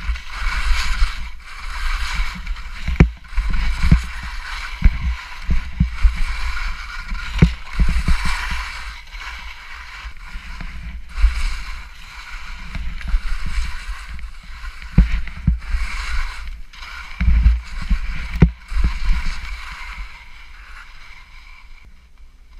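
Skis scraping and hissing over snow in repeated turns, the hiss swelling and fading every second or two, with frequent low knocks and thumps of the ski and pole impacts through the camera mount. It dies down over the last couple of seconds.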